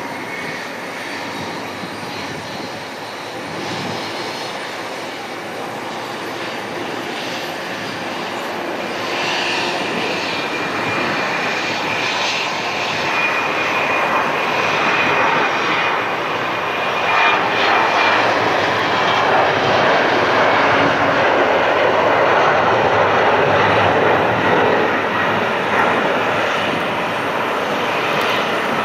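Twin-turbofan jet airliner (Embraer 195, GE CF34-10E engines) at takeoff thrust during its takeoff roll and lift-off. A steady engine roar that grows louder through the middle, with a high steady whine in the middle.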